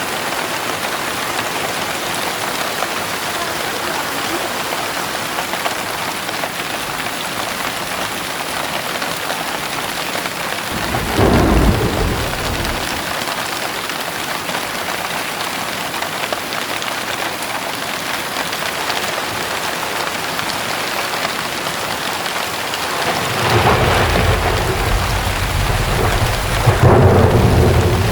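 Heavy rain falling in a steady hiss, with a short roll of thunder about eleven seconds in and a longer, louder rumble of thunder building near the end.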